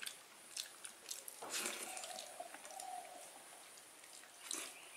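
Faint eating sounds: scattered small clicks and wet smacks of food being eaten, with a brief louder rustle about one and a half seconds in.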